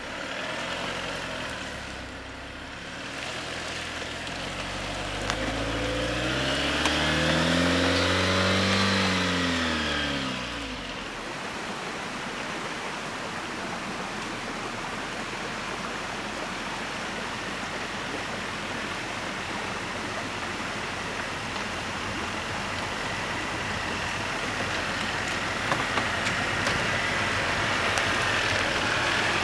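Jeep Wrangler 4xe's 2.0-litre turbocharged four-cylinder engine revving up and easing back down over several seconds, the loudest part. After that comes a steady rushing noise with no engine note.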